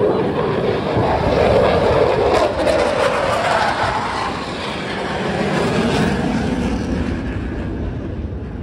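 Blue Angels F/A-18 Super Hornet jet flyby: a loud jet roar whose pitch rises, then falls away as it passes, fading near the end.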